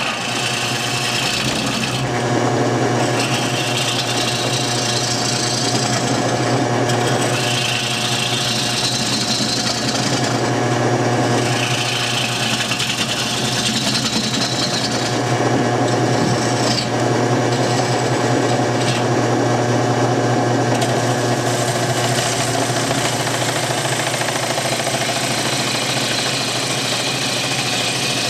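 Homemade wood lathe running with a steady hum while a turning tool cuts into a spinning bowl of green wood, the scraping hiss of the cut coming and going in passes of a few seconds.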